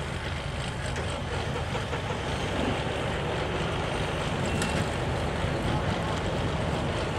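Vintage John Deere tractor engine idling, a steady low rumble.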